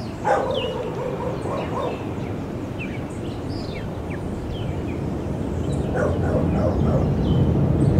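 Short, high chirping birdcalls over a steady low outdoor rumble, with a louder short call, like a bark, about a third of a second in and again around six seconds. The low rumble grows louder over the last few seconds.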